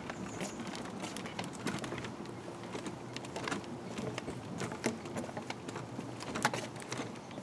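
Stroller wheels rolling over the plank deck of a wooden footbridge, rattling along with irregular clicks and knocks.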